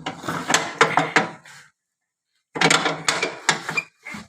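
Metal clunking and scraping of a ride-on mower's cutting-deck arms being jiggled back and forth into their mounts, in two spells of clatter with a silent gap of about a second between them.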